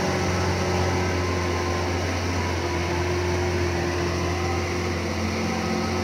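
Diesel engine of an LGMG MT60 mining dump truck running at a steady, low hum as the loaded truck drives slowly on a dirt haul road.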